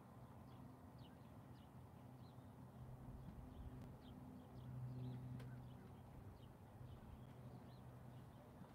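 Domestic cat purring on a lap, a faint low hum that swells and fades in stretches of a second or so with its breathing, loudest about five seconds in. Small birds chirp faintly in the background.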